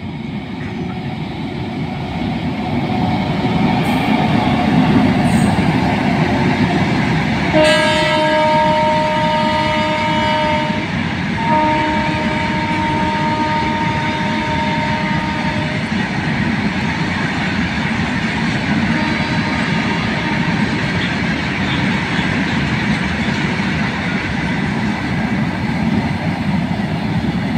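Electric freight locomotive approaching and passing, growing louder over the first few seconds, and sounding its multi-note horn in two long blasts about eight and eleven seconds in. Its long train of covered goods wagons then keeps rolling past with a steady rumble of wheels on rail.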